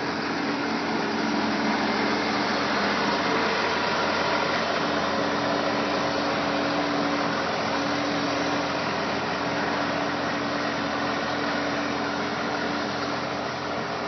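New Holland tracked skid steer's diesel engine running steadily as the machine drives, with a constant hum whose pitch shifts slightly a few seconds in.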